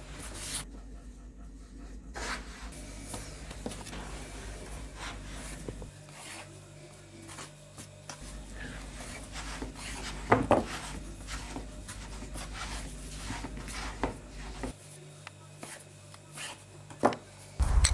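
Rubbing and scraping with scattered light knocks as sticks of firewood are handled at a wood stove, with a few sharper knocks about ten seconds in and again near the end.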